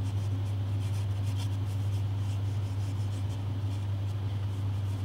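A steady low hum, with faint, quick scratchy strokes of a paintbrush working a mortar wash into plastic model brickwork.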